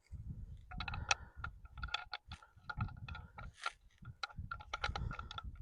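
Ruger Single-Six .22 revolver handled as its cylinder is changed: an irregular run of small metallic clicks and clinks with a short ring, over a low rumble.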